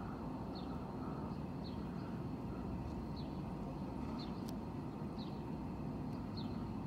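Steady low city-street rumble of traffic and idling vehicles, with a small bird giving short, high, falling chirps about once a second.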